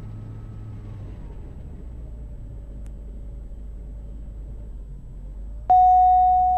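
Diamond DA50 RG's 300 hp engine running through its automatic engine test at run-up: its tone sinks over the first two seconds as the propeller governor cycles the RPM down, holds low, then starts to climb again near the end. Near the end a loud, steady cockpit alert tone sounds suddenly and lasts over a second.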